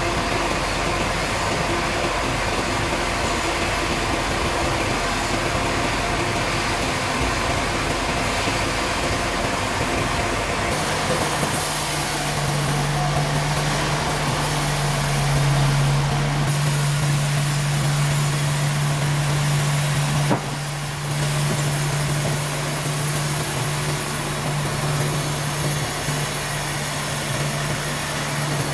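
Sawmill machinery running: a steady mechanical noise, joined about eleven seconds in by a steady low hum.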